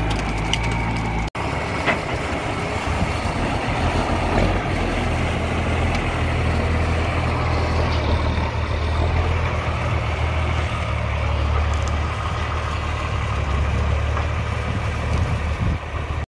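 Diesel engine of an REO M-series 2½-ton 6x6 military cargo truck running with a steady low drone. Sharp cracks of branches snapping under the tyres are heard in the first second or so, and the sound cuts out for an instant about a second in.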